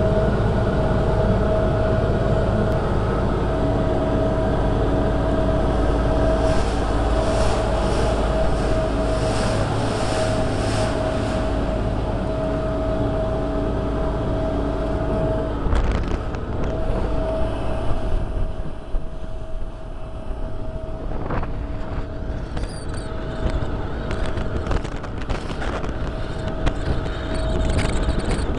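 Electric boat motor running with a steady high whine under way, over the rush of water along the hull. Past the middle the water gets rougher and irregular slaps and splashes of waves against the hull come through.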